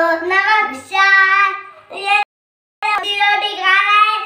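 A child singing a melody in long held notes that slide from pitch to pitch, broken by a brief cut to silence about two seconds in.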